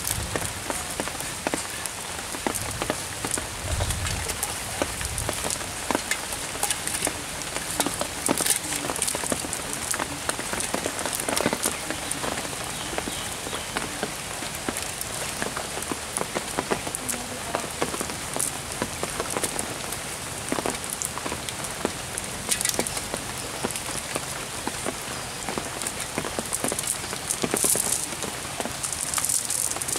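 Steady patter of rain, a dense crackle of many small drops hitting surfaces.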